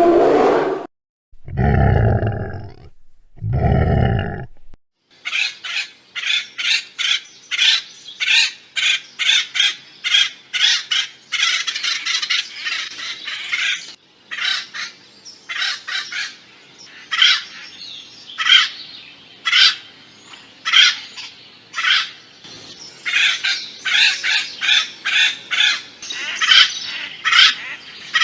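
Woodpecker calling: a long run of short, sharp, high calls, several a second and unevenly spaced, starting about five seconds in. Before that come two deep, loud animal sounds of a couple of seconds each.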